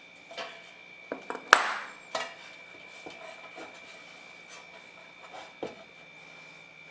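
Small metal parts clinking and knocking as they are handled, a handful of separate strikes with the loudest about a second and a half in, ringing briefly.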